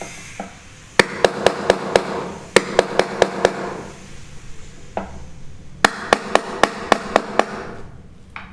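Hammer strikes in quick runs of five or six blows, about four a second, each with a short ring.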